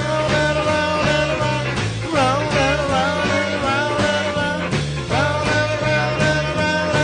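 Live blues band playing an up-tempo instrumental passage: a lead instrument holds long notes with several bends over a bass line stepping through a repeating figure.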